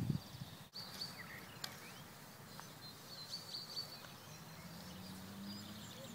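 Small birds chirping and trilling in short repeated phrases over a faint outdoor background hiss. A low steady hum comes in about four seconds in.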